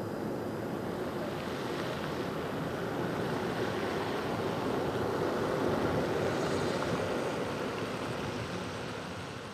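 Airbus A319-115's CFM56 turbofan engines at takeoff power as the jet climbs away: a steady rushing jet rumble that swells slightly midway and begins to fade near the end.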